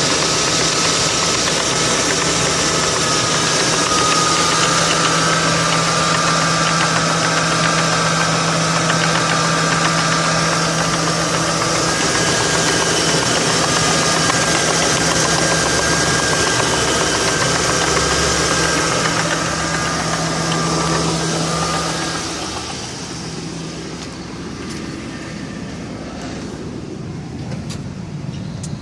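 2002 Ford Crown Victoria Police Interceptor's 4.6-litre V8 running with a knock from the top of the engine: a broken-off plastic PCV oil baffle flapping against the cam lobes. The sound drops noticeably in level about three quarters of the way through.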